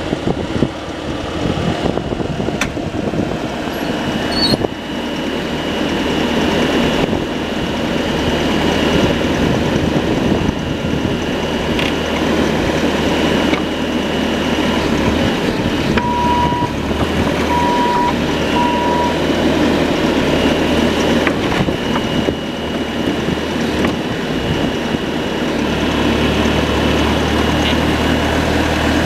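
Bobcat T650 compact track loader's diesel engine running steadily, with a high hydraulic-type whine over it. Three short electronic beeps about a second apart sound midway through.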